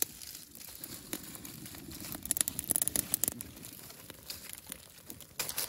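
Fire crackling inside a hollow tree trunk, with leaves rustling and crumpling. There is a cluster of sharp crackles about two and a half to three and a half seconds in.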